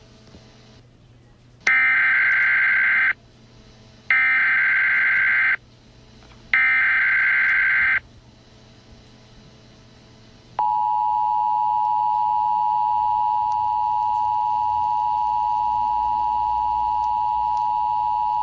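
Emergency Alert System SAME header: three identical bursts of warbling data tones, each about a second and a half long. After a short gap, the steady two-tone EAS attention signal follows and holds for about eight seconds, announcing an alert message.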